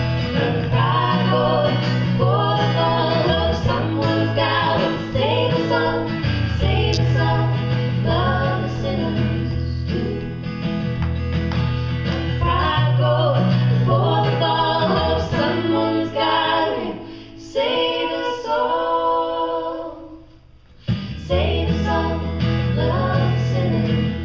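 Women singing a song together in harmony to acoustic guitar accompaniment, performed live. The music drops away briefly near the end, then comes back in.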